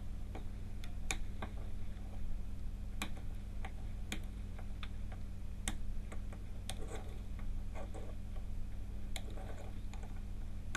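Flush side cutters snipping the excess wire leads of components off the underside of a circuit board. The snips are sharp, separate clicks at uneven intervals, about a dozen of them, over a steady low hum.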